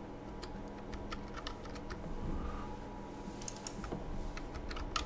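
Computer keyboard being typed on: a few scattered keystrokes, then a quick run of several about three and a half seconds in and a few more near the end, over a faint steady hum.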